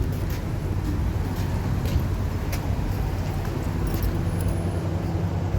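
Car engine idling, heard inside the cabin as a steady low hum, with a few light clicks and rattles.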